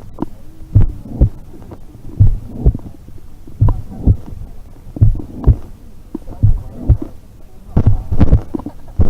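Horse heartbeat with a heart murmur: low thumps in pairs about half a second apart, a pair roughly every second and a half, with a fainter sound between beats.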